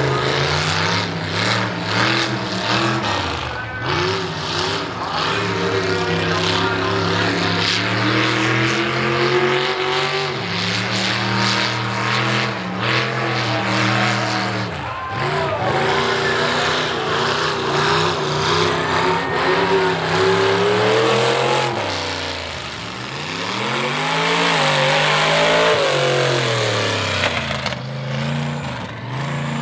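Mega mud truck engine on open upright headers, revving hard and falling back again and again as the truck throttles through the mud obstacle course.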